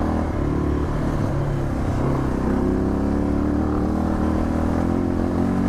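Suzuki DR650's single-cylinder four-stroke engine running under load as the motorcycle is ridden along a soft dirt trail, its pitch stepping up and down a little with the throttle.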